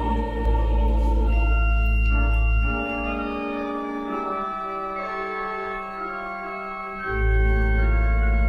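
Organ music: sustained, slowly changing chords as an instrumental interlude. A deep bass note drops out about three seconds in and comes back near the end.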